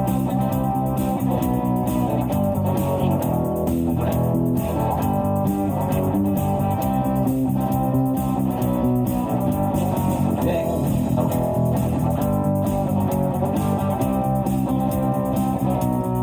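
Live rock band playing an instrumental passage: guitars over a bass guitar line, with no singing.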